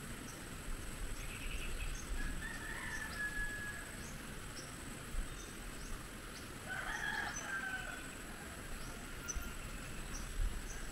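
Rooster crowing twice, once about two seconds in and again about seven seconds in.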